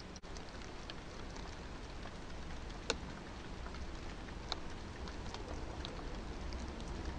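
Steady hiss of light rain with scattered drips ticking, one sharper tap about three seconds in.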